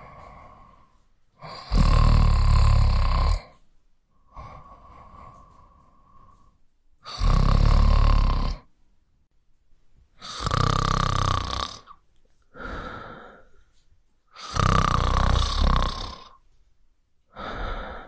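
A person snoring: four loud snores, each about two seconds long and coming roughly every four seconds, with quieter breaths in between.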